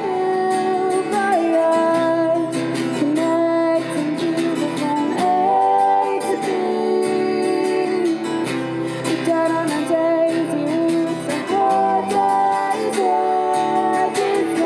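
A song: a woman's voice singing over strummed acoustic guitar.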